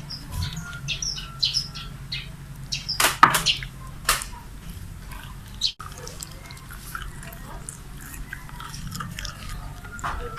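Chicken skin being chewed close to the microphone: a run of small crisp crackles, with a few sharp, loud crunches about three to four seconds in.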